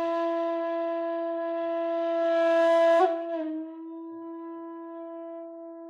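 A bamboo chiba, the Chinese end-blown flute of the shakuhachi kind, holding one long low note that swells louder and breathier, then about three seconds in dips slightly in pitch and carries on softer.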